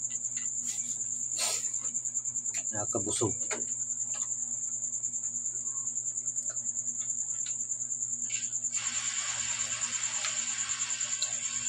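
A cricket trilling steadily, a high-pitched pulsing chirp, with a few faint clicks as boiled kamansi seed shells are cracked and peeled by hand. A brief low murmur comes about three seconds in, and a hiss joins near the end.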